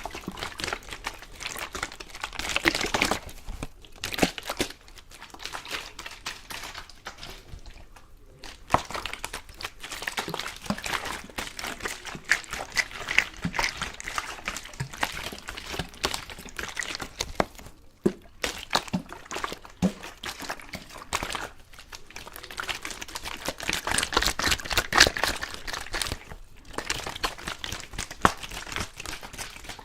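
Close-miked ASMR water sounds: crackling, splashing water handled in uneven swells, dense with small clicks.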